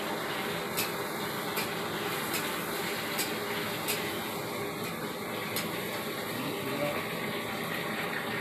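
Steady rushing hiss with light, sharp clicks every second or so: a small knife tapping against a steel plate as food is cut.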